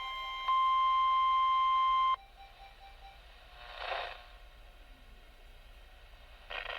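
NOAA Weather Radio 1050 Hz warning alarm tone, a steady single-pitched beep sounded for the weekly test. It jumps louder about half a second in and cuts off suddenly about two seconds in. A brief rush of noise swells and fades around four seconds in.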